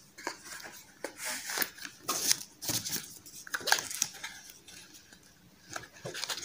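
Cardboard mascara box handled on a tabletop: irregular scratchy rustling and scraping with a few light knocks, thinning out in the last couple of seconds.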